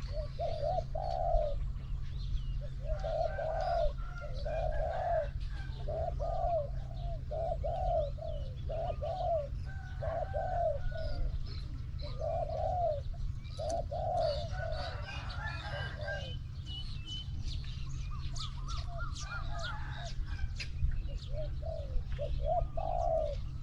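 Spotted dove cooing in repeated low phrases, a decoy bird calling to draw a wild dove in, with small birds chirping faintly at a higher pitch.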